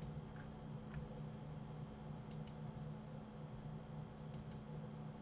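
Computer mouse clicking: three quick double clicks about two seconds apart, with a couple of fainter single clicks in the first second, over a steady low hum.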